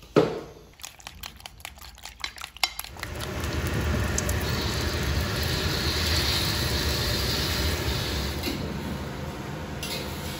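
One cleaver chop on a wooden board, then about two seconds of rapid light clicking of utensils against dishes. From about three seconds in, a steady sizzle of beaten egg and chopped scallions frying in hot oil in a wok, with a couple of light utensil clicks near the end.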